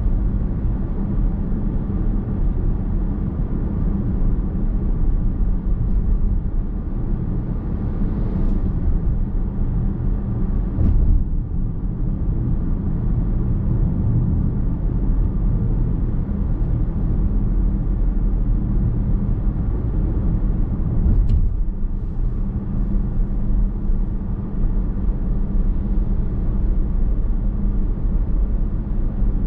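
Steady road noise of a car cruising, heard from inside the cabin: tyre rumble and a low engine and drivetrain hum at constant speed, with a couple of brief swells partway through.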